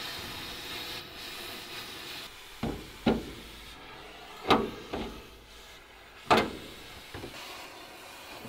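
Cutting torch hissing steadily, then stopping about two seconds in; after that, about six sharp metal knocks and clanks as the cut sheet metal of an old truck's front end is pried and pulled loose with a pry bar.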